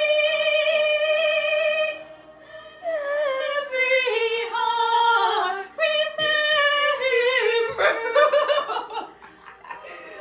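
Recorded female singing played through laptop speakers: a long held note with vibrato, then moving melodic lines.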